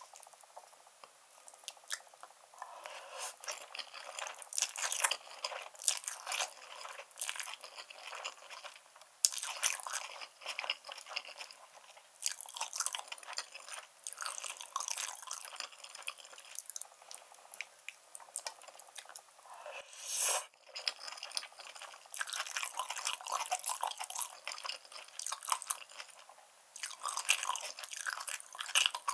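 Close-miked chewing of black bean instant noodles topped with grilled Korean beef and enoki mushrooms: an irregular run of many small mouth clicks and crunches, with one brief louder rush about 20 seconds in.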